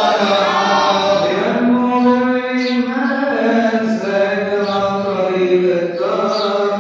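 A male voice chanting a slow, melismatic Coptic liturgical hymn into a church microphone, with long held notes gliding from pitch to pitch over a steady low note.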